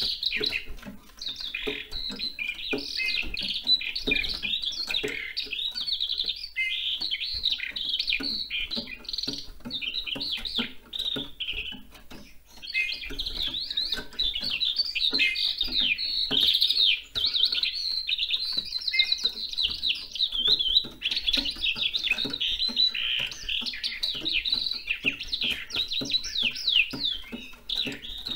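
Eurasian skylark singing a long, unbroken stream of rapid, high warbling and trilling notes, with one short break about twelve seconds in.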